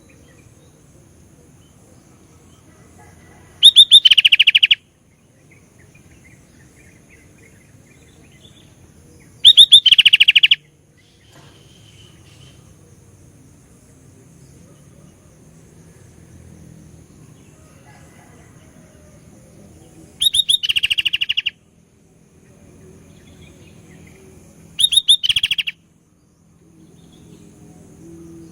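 Sooty-headed bulbul singing four loud, fast trilling phrases of about a second each, with long pauses between them, over a faint low hum.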